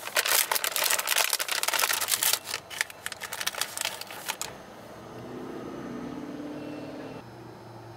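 Plastic packaging crinkling in a rapid run of crackles that stops about four and a half seconds in, leaving a faint steady hum.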